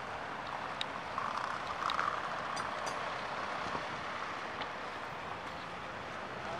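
Steady noise of distant cars driving along a winding road, with a few faint clicks.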